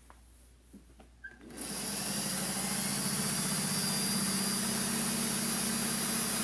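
Vintage Singer sewing machine starting up about a second and a half in and then running steadily at speed, a fast even run of needle strokes with a motor hum, as a long straight seam is sewn down a folded fabric strip. A few small clicks come before it starts.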